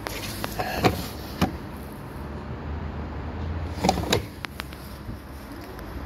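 The door of a Miele W1 front-loading washing machine being handled: a few sharp knocks and clicks, two in the first second and a half and a close pair around four seconds in, over a steady low rumble.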